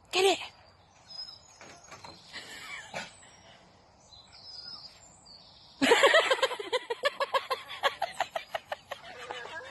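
A dog gives one short bark near the start, then from about six seconds a rapid run of excited yips and barks, about five a second, as it leaps. Faint birdsong lies in between.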